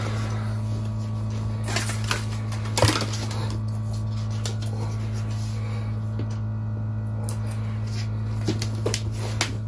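Packaging being handled during an unboxing: scattered knocks and clicks, the loudest about three seconds in and a few more near the end, over a steady low electrical hum.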